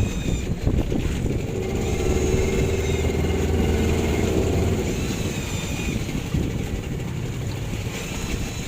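A small engine running steadily, swelling a little about two seconds in and easing off after about five seconds.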